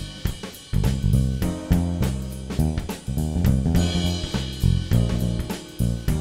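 Background music with a steady beat: drums and bass guitar with regular drum hits.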